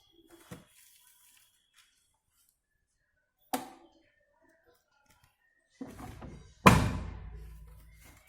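A couple of light knocks, then a loud, heavy thunk near the end with a low rumble that dies away over about a second and a half.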